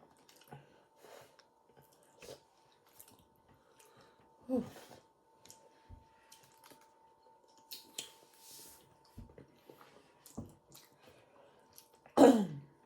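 People eating at close range: chewing, with scattered small clicks and crackles of a seafood meal being picked apart, over a faint steady hum. A short grunt-like voice sound comes about a third of the way in, and a louder falling vocal exclamation comes near the end.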